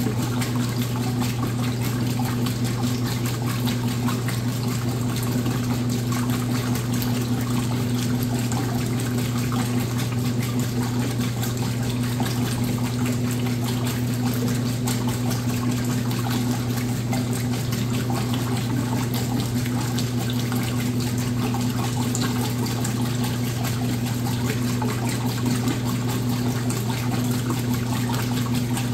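Washing machine running: a steady motor or pump hum under the noise of moving water.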